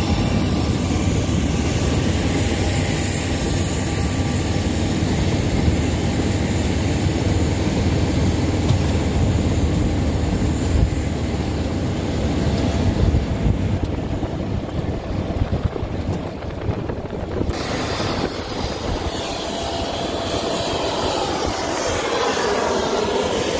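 Steady low rumble of a golf cart driving across an airport ramp, with wind on the microphone, and a high steady whine from jet airliners parked on the ramp. The high whine drops away for a few seconds past the middle, and a sweeping tone comes in near the end.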